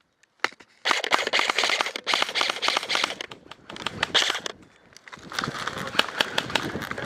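Airsoft electric guns firing in bursts: a rapid clatter of shots that starts about a second in and eases briefly past the middle, then picks up again.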